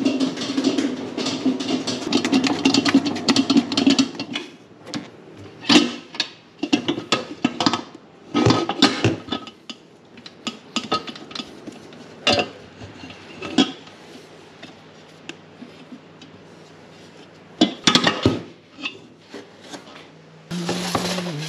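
Kitchen clatter as ingredients are scooped from plastic tubs and a stainless steel mixing bowl is handled: a dense rustling scrape at first, then scattered sharp knocks and clinks. Near the end a man starts humming a tune.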